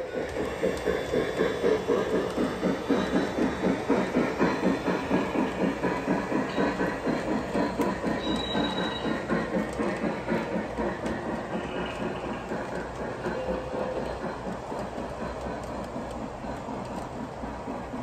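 Lionel Legacy 4-4-2 Atlantic O-gauge model train running with its freight cars rolling on the track, with a steady beat of about three a second that fades slowly as the train moves away.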